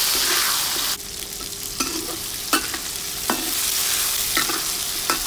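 Shallots, chilies and tomatoes sizzling in oil in a hot wok, stirred with a metal spatula that scrapes and clinks against the wok several times. The sizzle drops suddenly about a second in, then builds back up.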